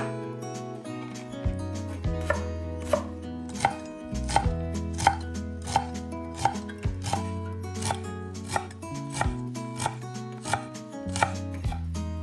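Chef's knife chopping fresh dill on an end-grain wooden cutting board: crisp knocks of the blade on the board at an even pace, about three every two seconds, with background music underneath.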